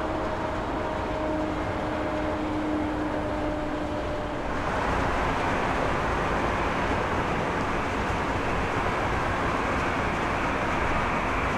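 Airliner jet engines running. For about the first four and a half seconds an Airbus A319's CFM56 turbofans give a steady hum with two held tones. Then there is a sudden cut to a louder, broader roar from an Airbus A320's jet engines.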